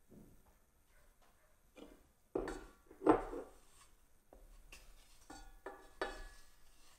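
Knocks and clinks as a block of butter and a wooden spoon go into a stainless steel pot of water, the two loudest knocks about two and a half and three seconds in, followed by lighter taps as the spoon pushes the butter around.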